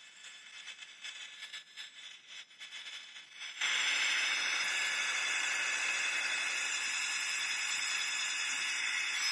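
Hot-air gun blowing: a steady rush of air with a high whine. It is uneven and quieter at first, then jumps louder and holds steady about three and a half seconds in.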